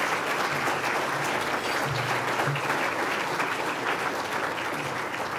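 Audience applauding, a dense steady clapping that starts easing off near the end.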